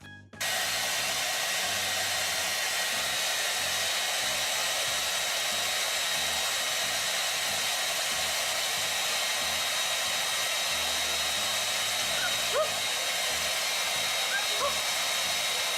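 Hair dryer switching on about half a second in and blowing steadily: an even rush of air with a thin steady whine. Two faint, brief rising squeaks come through it later on.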